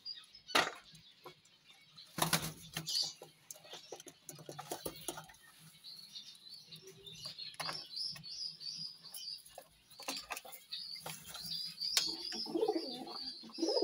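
Pigeons flapping their wings and pecking with sharp taps at food in a plastic dish, with one loud burst of wing flapping about two seconds in. A high chirping runs through the second half, and a low cooing comes near the end.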